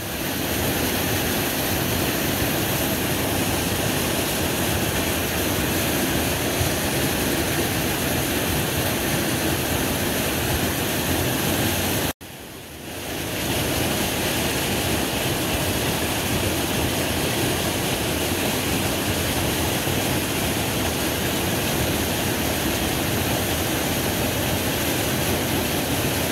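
Water of a small mountain creek rushing steadily. It cuts out for an instant about twelve seconds in, then fades back up to the same steady rush.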